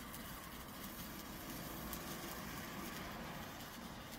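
Hand-held Weco Zauberlichter sparkler (bengal-light stick) burning with a faint steady fizzing and crackling, over a low background rumble.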